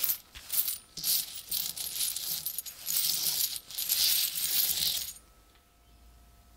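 A pile of old metal coins clinking and jingling against each other as a gloved hand stirs through them on a burlap cloth: dense, rapid metallic clinks that stop about five seconds in.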